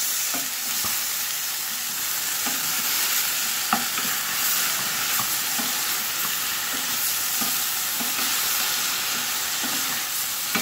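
Broccoli and carrots sizzling in butter in a stainless steel pan while being stirred with a wooden spatula. Under the steady sizzle the spatula knocks and scrapes against the pan about once a second, with one sharper knock about four seconds in.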